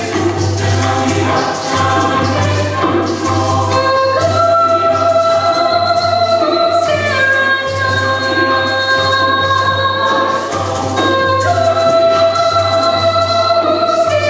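Chamber choir singing, holding long sustained chords that change every few seconds.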